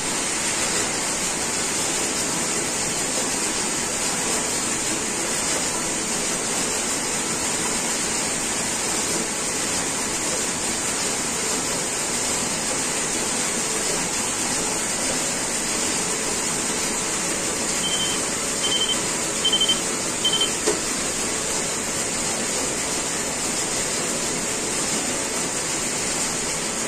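Steady hissing machine-room noise from the knitting machine and factory, with four short, evenly spaced key beeps from the flat knitting machine's control panel about two-thirds of the way in.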